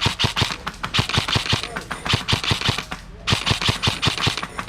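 Airsoft rifle firing on full auto: a rapid string of sharp shots, about eight a second, with a brief pause about three seconds in.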